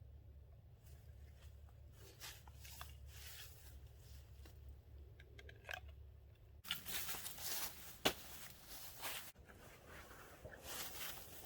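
Irregular rustling and crunching, like handling gear or moving through dry leaves and brush. A low steady hum cuts off abruptly about two-thirds of the way through, the rustling grows louder after it, and there is one sharp snap or click shortly after.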